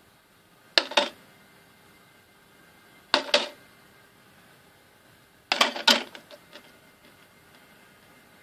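Airsoft reactive target being hit by BBs: three sharp double clacks about two and a half seconds apart, the last one followed by a few lighter rattles.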